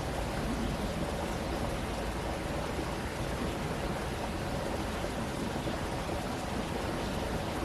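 Stream water running steadily: an even rushing with no distinct splashes or changes.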